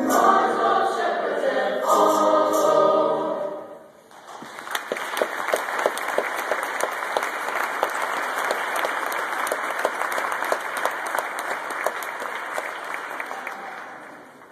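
A junior high school choir sings a held chord that stops about four seconds in, then the audience applauds, the clapping fading away near the end.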